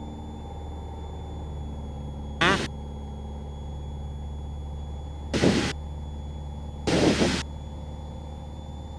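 Piper PA-28 light aircraft engine running steadily in cruise, heard inside the cabin. Three short, loud bursts of noise break over it, about two and a half, five and a half and seven seconds in.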